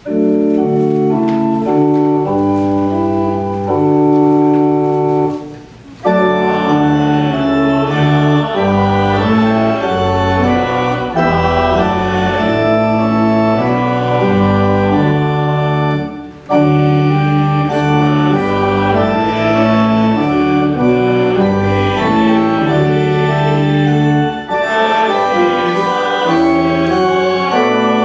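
Church organ playing a slow, hymn-like passage in full held chords, with short breaks between phrases about six and sixteen seconds in.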